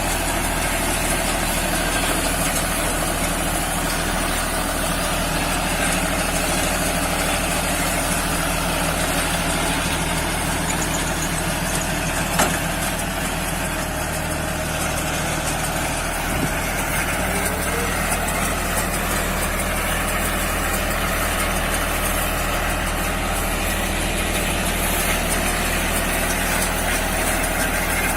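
Engine of a straw baler rig running steadily at an even speed, with a single sharp knock about twelve seconds in.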